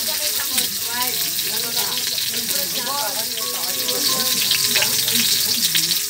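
Whole garlic cloves frying in hot oil in a pan, sizzling steadily.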